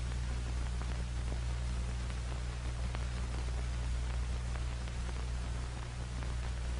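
Steady hiss with a low, constant hum: the background noise of an old film soundtrack, with no gunshots or other distinct events.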